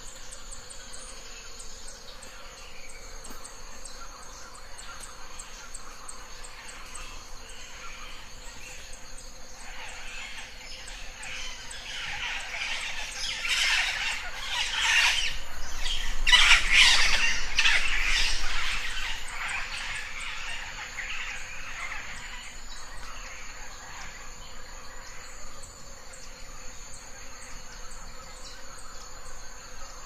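Birds calling in a dense run of many overlapping calls that swells from about ten seconds in, is loudest in the middle and fades again, over insects buzzing in steady high tones.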